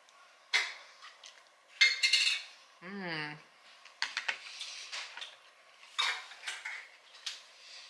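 Chopsticks clicking and tapping against a plastic sushi tray and a ceramic dipping bowl, with chewing. A short hummed 'mm' comes about three seconds in.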